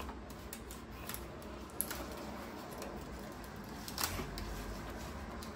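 Small scissors clicking and snipping as the plastic ties holding doll clothes to a cardboard insert are cut, with the cardboard rustling under the hands. The sharpest snips come about two seconds in and about four seconds in.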